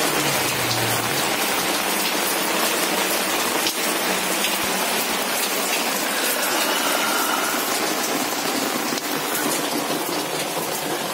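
Heavy cyclone rain pouring steadily, with scattered sharp drops striking nearby surfaces.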